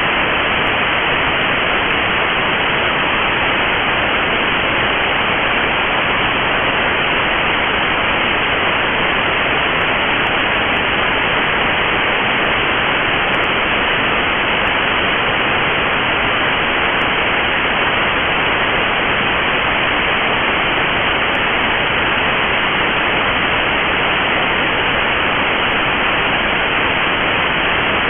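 Steady, unbroken hiss of radio static from a weather radio receiver with no signal coming in: the weather radio station has dropped off the air in the middle of its broadcast.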